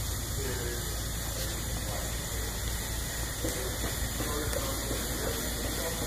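Steady hissing background noise with a low hum underneath, and faint voices in the background.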